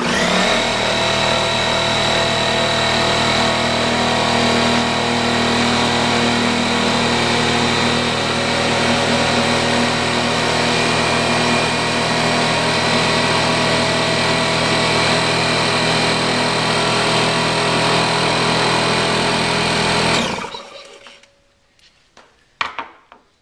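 Electric air compressor starting up and running steadily as it fills its tank, then cutting off about 20 seconds in when it reaches its cut-out pressure of 110 psi.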